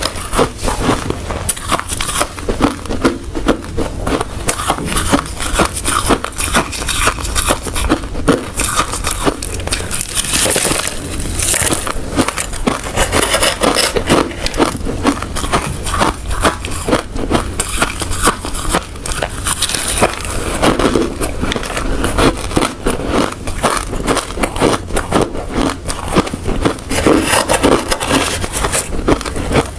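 A person chewing and crunching hard ice close to the microphone: a continuous run of rapid, loud, crackling crunches.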